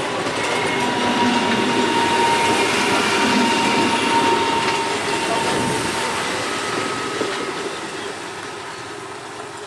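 Train running past on the track: steady wheel-on-rail noise with thin squealing tones from the wheels, fading away near the end.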